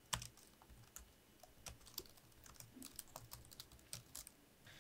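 Fingers typing on a laptop keyboard: faint, irregular key clicks.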